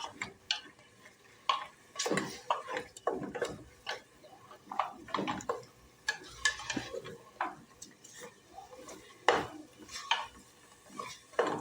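A cooking spoon stirring and scraping chicken and onion in the bottom of a pressure cooker pot. It makes a run of irregular scrapes and knocks.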